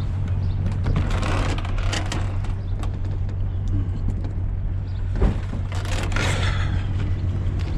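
A vehicle's engine running with a steady low drone, heard from inside the cab, with scattered clicks and rattles.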